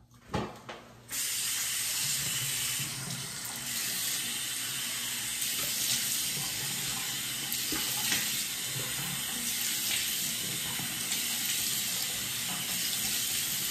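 Bathroom sink faucet running steadily into the basin, with hands scooping and splashing water to rinse foaming cleanser off the face. The water comes on about a second in, after a couple of light knocks.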